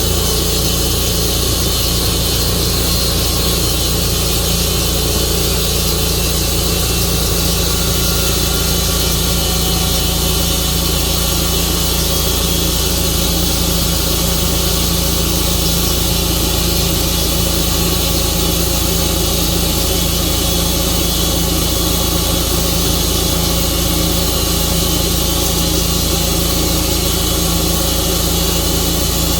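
Tru-Cut sawmill's engine running at a steady, unchanging speed.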